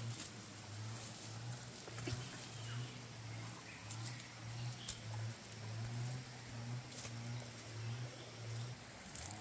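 Barefoot footsteps on rock and dry leaves, a few light clicks of twigs and leaves, over a low hum that pulses on and off and stops near the end.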